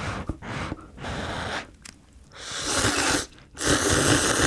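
Instant cup ramen noodles being slurped up in a series of long, loud slurps, the last two the loudest.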